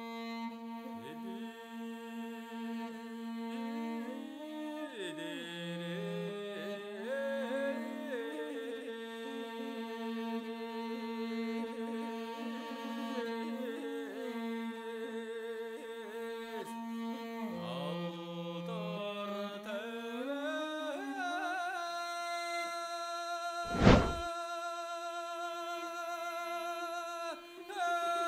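Background music: a slow melody of long held, gliding notes. Near the end a single loud thump cuts across it.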